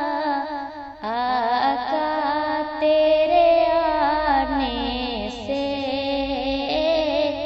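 A woman singing an Urdu naat (Islamic devotional song) in long, ornamented phrases; a new phrase begins about a second in.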